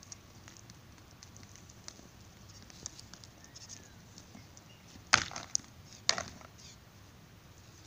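Two goats butting heads: two loud clashes of horn and skull about a second apart, about five seconds in.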